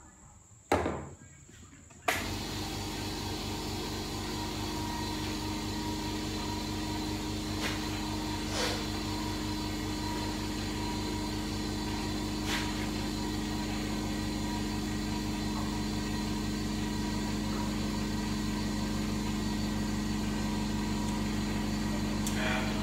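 An air compressor's motor starts abruptly about two seconds in, just after a knock, and runs steadily with a low hum, supplying air for a clutch-drum air pressure test on a 722.9 automatic transmission. A few faint clicks come over it.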